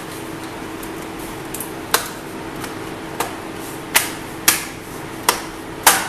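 Plastic memory-compartment cover on the underside of an HP 15 laptop being pressed down by hand, its retaining clips snapping into place in six sharp clicks from about two seconds in.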